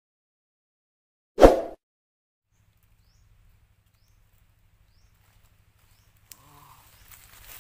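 A single short, loud edit sound effect about a second and a half in, then near silence. Faint outdoor rustling begins near the end.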